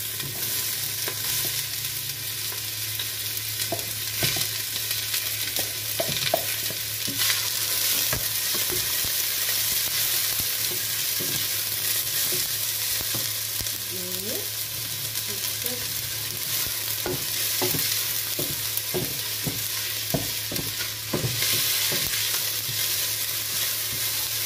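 Chopped onions sizzling as they sauté in olive oil in a stainless steel pot, stirred with a wooden spatula that scrapes and knocks against the pot now and then. A steady low hum runs underneath.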